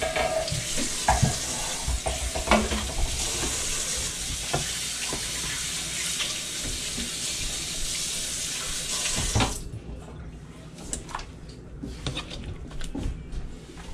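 Running tap water, a steady hiss that cuts off abruptly about two-thirds of the way through. Then a metal ladle clinks and scrapes in a wok.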